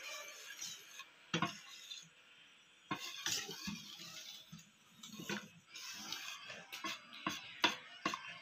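Wire balloon whisk stirring a thin batter in a bowl, its wires clicking and knocking irregularly against the bowl's side, with a few louder knocks.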